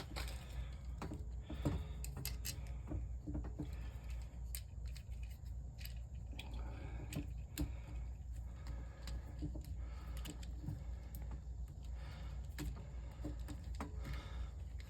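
Irregular small clicks and metallic taps of hand work on a replacement well pump pressure switch, with tools and parts being handled, over a steady low hum.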